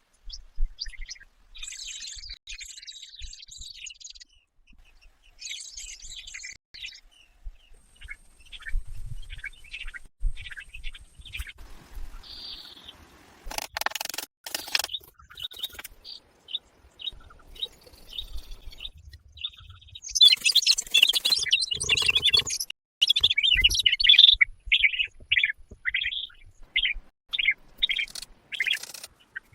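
Birds chirping and calling in many short, high notes, ending in a run of quick repeated notes near the end. A few brief, harsh, noisy sounds come through around the middle.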